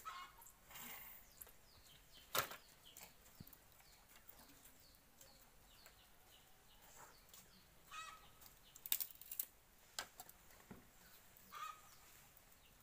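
A few sharp knocks and clicks of firewood being set down and handled at a clay stove, over sparse bird chirps.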